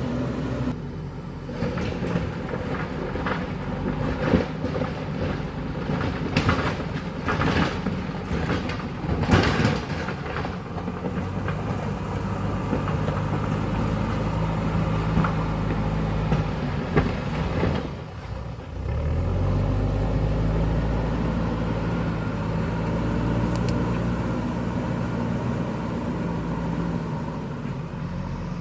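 JCB backhoe loader's diesel engine running under load while the bucket digs, with a run of clanking knocks and scraping against earth and stone in the first third. A little past halfway the engine dips briefly, then revs up and holds a steady higher pitch.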